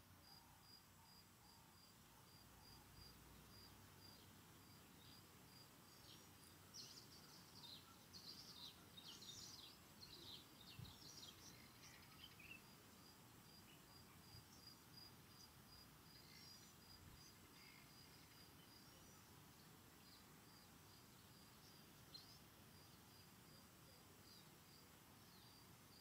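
Faint outdoor ambience of birds and insects: an insect chirps in a steady run of short, high pulses throughout, and birds call briefly several times between about seven and twelve seconds in.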